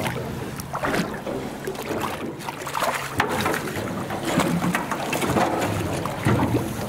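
Water splashing and slapping around a boat's hull, with a hooked fish thrashing at the surface alongside and wind buffeting the microphone.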